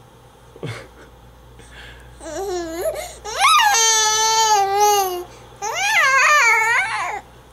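Baby squealing and cooing happily: a short wavering call, then one long high squeal held for about two seconds, then a few rising-and-falling squeals near the end.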